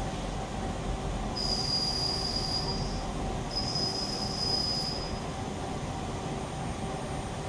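Two high, steady squeals, each about a second and a half long, from the steel auger shaft in the lathe as a hand works over it, over a steady machine hum.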